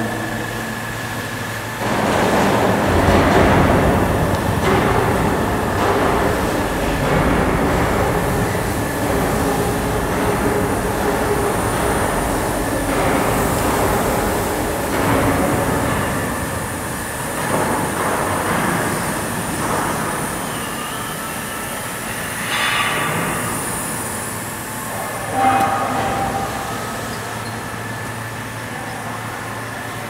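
Y81F-200 hydraulic scrap metal baler running: a steady mechanical drone from the press and its hydraulic power unit, with a faint steady whine. It gets louder about two seconds in, and a few sharper, louder noises come in the latter part.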